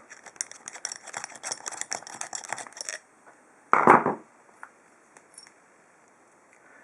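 Small metal parts of a padlock being worked with a screwdriver: a fast run of clicks and scraping for about three seconds, as a screw held with thread-locker comes free. This is followed by one loud knock a little later.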